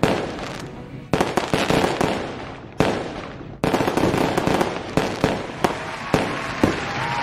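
Fireworks sound effect: several sudden bangs, each trailing off, then a run of rapid crackling pops.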